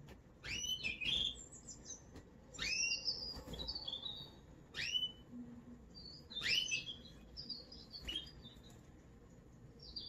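American Singer canary singing in short phrases of quick upward-sweeping whistles and chirps, about five phrases with brief pauses between them.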